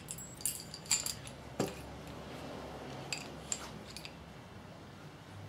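Light metallic clinks and taps of steel motorcycle fork parts, a damper rod and chrome fork tube, being handled on a bench during reassembly: a cluster of short clicks in the first second and a half, then a few more around three seconds in.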